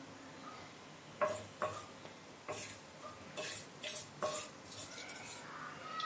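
A metal spoon stirring in a pan of hot oil, clinking against the pan with short ringing knocks, about eight of them starting a second or so in.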